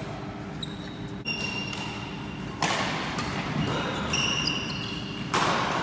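Badminton play in an echoing sports hall: three sharp racket-on-shuttlecock hits and short squeaks of court shoes on the wooden floor.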